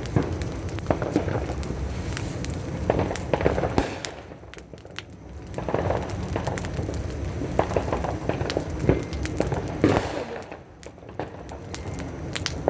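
Firecrackers popping in rapid, irregular crackles, with brief lulls about four seconds in and again near the end.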